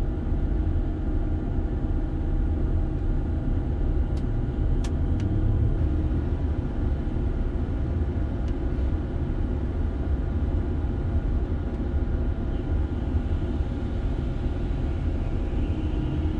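Mobile crane's diesel engine and hydraulics running steadily under load, heard from inside the operator's cab as the crane slews: a steady low drone with several held tones. A few brief clicks about four to five seconds in.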